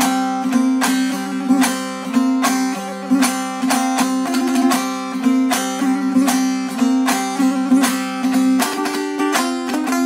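Background music: a plucked string instrument playing quick repeated notes over a steady low drone.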